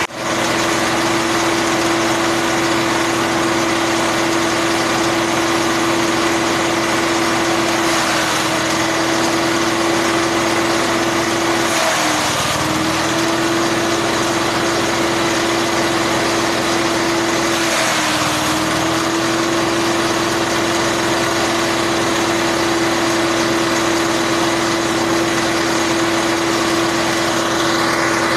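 Grass chopper machine running with a steady hum. Twice, about twelve and eighteen seconds in, the hum sags briefly in pitch with a burst of rushing noise.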